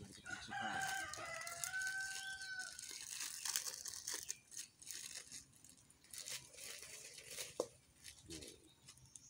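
A rooster crows once near the start, a long call rising and then held. Then a plastic instant-noodle packet is torn open and crinkled, with scattered rustles and clicks after.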